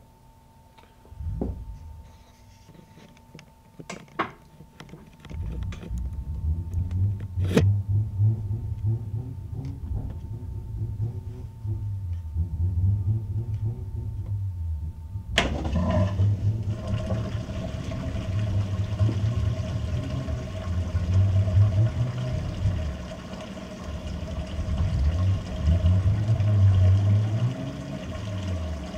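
Whirlpool WTW7300DW top-load washer starting a rinse-and-spin cycle: a few clicks, then from about five seconds in the motor rumbles low in uneven surges as it moves the wet load. About halfway through, a sharp click is followed by a steady rush of water that runs on under the motor.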